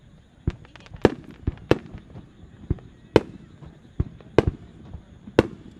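Traditional Japanese aerial fireworks shells launching and bursting: a string of sharp bangs, about ten in under six seconds at uneven spacing, with a brief cluster of small crackles a little under a second in.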